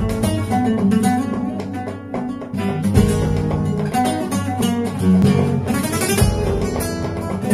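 Solo flamenco guitar playing bulerías: quick picked notes mixed with sharp strummed chords.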